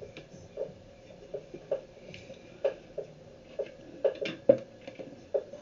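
Irregular light taps and clicks of small tools and a wire hook being handled on a tabletop, about one or two a second, with a louder knock near the end.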